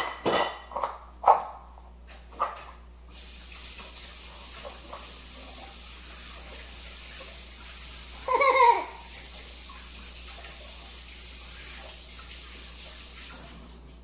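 Kitchen tap running steadily for about ten seconds while hands are washed under it, then shut off near the end. A toddler laughs briefly about halfway through.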